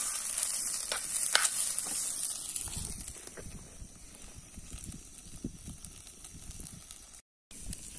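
Raw rice sizzling in hot oil in an aluminium pot over a wood fire as it is sautéed before the water goes in, with a few knocks of the stirring spoon. About two and a half seconds in, the sizzle falls to a faint hiss with low rumbling, and the sound drops out briefly near the end.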